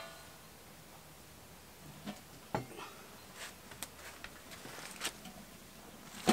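A lidded metal cooking pot being lifted off a grate over a wood fire and carried: a few light clicks and knocks from its lid and handles over a quiet background, then a sharper knock near the end as it is set down on a table.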